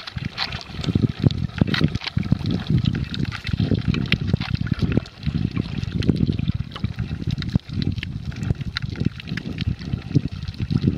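Water noise heard through a submerged camera: uneven sloshing and gurgling surges, with frequent small clicks and knocks.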